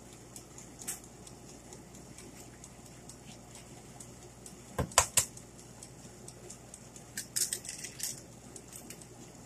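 Egg being cracked against the rim of a bowl: three sharp knocks close together about five seconds in, then a quick cluster of small clicks and taps of shell on the bowl.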